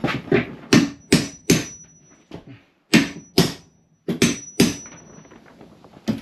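Hammer striking wood, about nine sharp blows in uneven groups: a quick run of five, then two pairs after short pauses.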